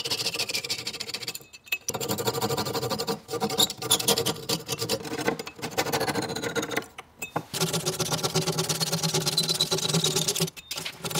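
Veritas flush-cut saw sawing off glued-in wooden wedges flush with a walnut surface: quick rasping strokes in about five bursts separated by brief pauses.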